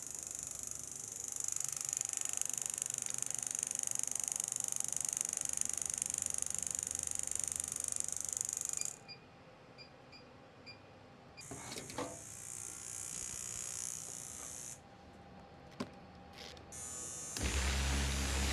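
Handheld electric massage device's small motor buzzing steadily. It stops about nine seconds in and runs again in shorter spells. Near the end a louder, deeper steady noise takes over.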